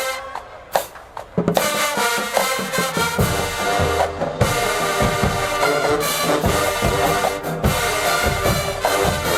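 HBCU marching band playing, with brass and drums. A couple of short hits come first, then the full band comes in about a second and a half in, with heavy bass drum strokes from about three seconds on.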